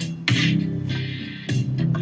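Electronic music playing through a Logitech LS21 2.1 computer speaker set, its subwoofer fitted with a replacement 6-ohm 25-watt woofer. The bass is heavy, with beats about every second and a bit, and sounds very drummy.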